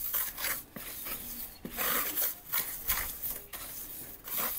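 Hands mixing coarse ground black pepper and kosher salt in an aluminium foil tray: a gritty, rustling scrape in uneven strokes.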